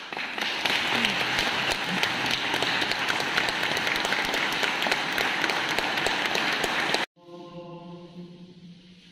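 Audience applauding, a dense patter of many hands, cut off abruptly about seven seconds in; a faint sustained note follows.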